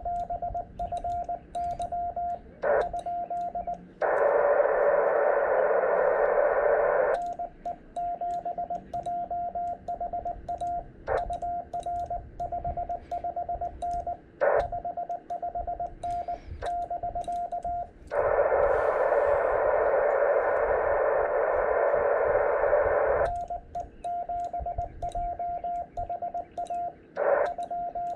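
Morse code being sent: a steady CW sidetone of about 700 Hz keyed in dots and dashes, with the light clicking of a Vibroplex Bencher BY-2 paddle under each stroke. Twice the keying stops and the transceiver's receiver hiss fills in for a few seconds while it listens on receive, then the sending resumes.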